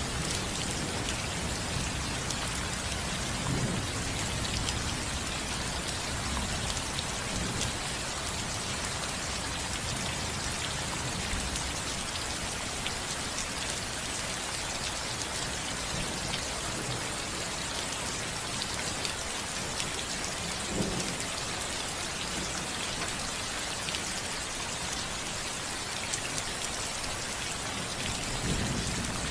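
Steady rain falling on a house roof, an even patter, with low rumbles of thunder swelling briefly about two-thirds of the way in and again near the end.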